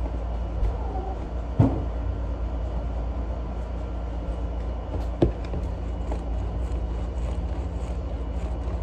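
Steady low hum, with two sharp knocks, one about a second and a half in and one about five seconds in, and a few faint ticks.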